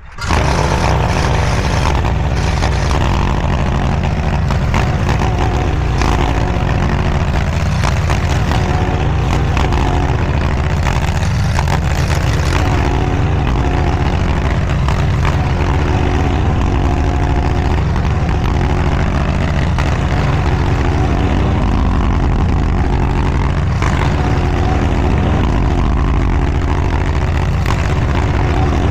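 DIGGIT SCL850 stand-behind mini skid steer's engine running steadily at working speed, with a few brief knocks.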